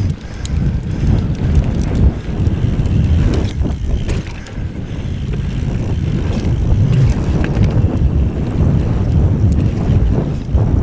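Wind buffeting the microphone of a camera on a mountain bike riding fast down a dirt trail, a loud steady low rumble, with the tyres and bike rattling over the ground now and then.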